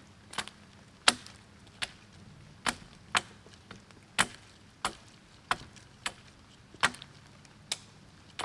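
Sharp chopping strokes of a blade on a green sapling pole, about a dozen in an uneven rhythm roughly every three-quarters of a second, knocking the side branches off the pole.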